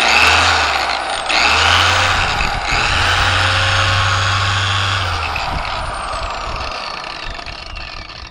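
Bauer dual action polisher's electric motor switched on in three quick bursts, its whine climbing each time, then let go at about five seconds and winding down slowly.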